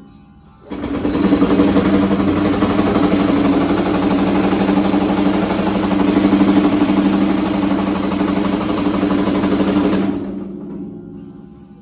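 Baileigh PH-28HD power hammer running, its ram hammering a sheet-metal panel in rapid, steady blows to raise a large bead. It starts up about a second in and winds down near the end.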